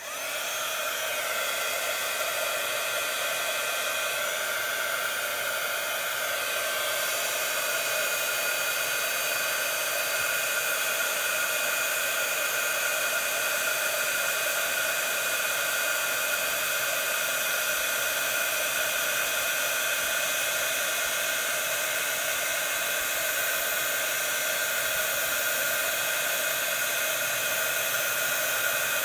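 Handheld craft heat gun blowing at full power, used to melt embossing powder: a loud, steady rush of air with a high motor whine. It cuts in abruptly as it is switched on.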